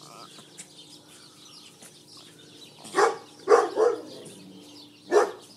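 Dog barking: three quick sharp barks about three seconds in, then one more near the end. Birds chirp faintly in the background.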